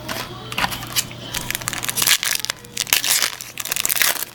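A foil trading-card pack wrapper being crinkled and torn open: a dense run of sharp crackling rustles, heaviest in the second half.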